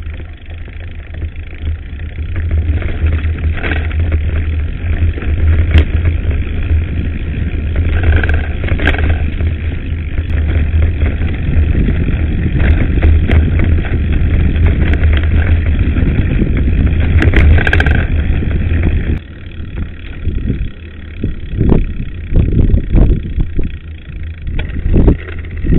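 Wind buffeting the microphone of a mountain bike's camera, with a steady low rumble and the bike rattling and knocking over a gravel track. About 19 s in the rumble drops and turns gusty as the bike rolls onto smooth asphalt.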